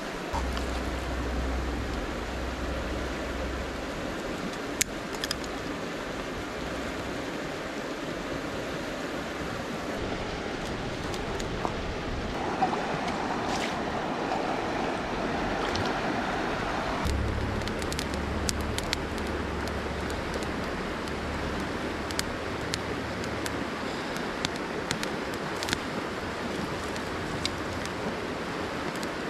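Steady rush of a river flowing over stones, with scattered small clicks. For a few seconds in the middle there is a brighter gurgling as a metal cup is dipped and filled in the shallow water.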